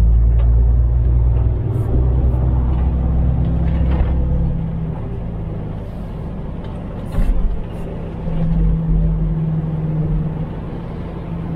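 Truck engine and road noise heard from inside the cab while driving, a steady low drone that eases off about four seconds in. A short thump comes about seven seconds in.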